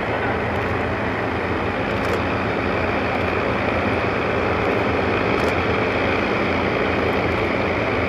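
The four Rolls-Royce Merlin V12 piston engines of an Avro Lancaster bomber running steadily at low taxiing power, a loud even drone that grows slightly louder near the end as the aircraft comes closer.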